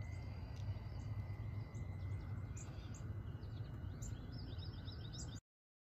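Small birds chirping in short repeated calls, busier near the end, over a steady low rumble. The sound cuts off abruptly about five seconds in.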